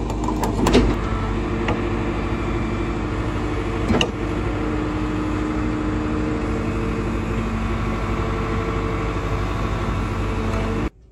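Caterpillar 312D2 GC excavator's diesel engine running steadily, with sharp metallic clanks about a second in and again about four seconds in. The sound cuts off abruptly near the end.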